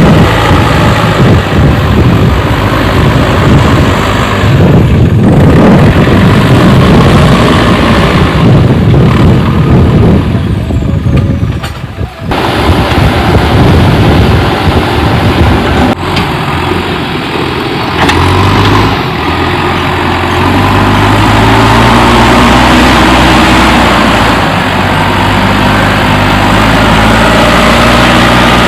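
Diesel engine of a JCB 3DX backhoe loader running loud and close. It drops out briefly about a third of the way in, then settles into a steadier drone.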